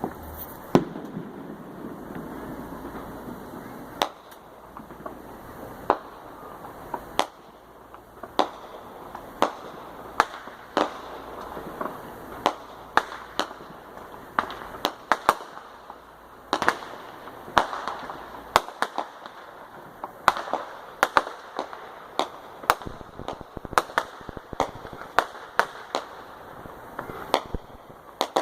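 Fireworks going off: a long string of sharp bangs and pops, irregular and roughly one or two a second, some in quick clusters, over a steady crackling hiss.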